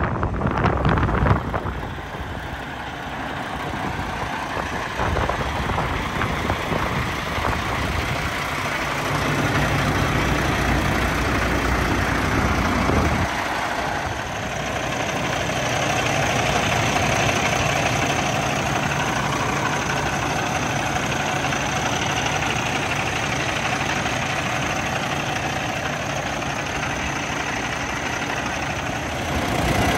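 Heavy-truck diesel idling steadily: the Kenworth T680's Cummins X15 inline-six. Wind buffets the microphone in the first second or two.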